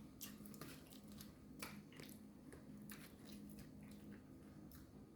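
Near silence: faint, irregular small clicks over a low steady hum.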